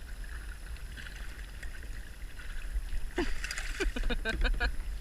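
Kayak paddling: the paddle working the water with small splashes and drips over a steady low rumble, with a quicker run of splashes and clicks in the second half.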